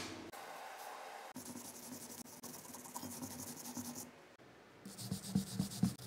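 Small steel wire brush scrubbing the fresh weld beads on a microwave transformer's steel core: a quiet, scratchy rubbing made of quick strokes, with a few louder knocks near the end.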